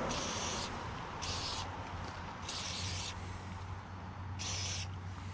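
Aerosol mass airflow sensor cleaner sprayed in four short hissing shots onto a removed mass airflow sensor, cleaning its sensing wire and housing. A faint low hum runs underneath.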